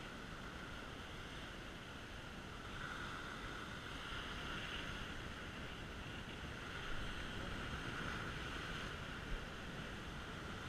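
Surf breaking and washing up a sandy beach, swelling and fading, with wind on the microphone.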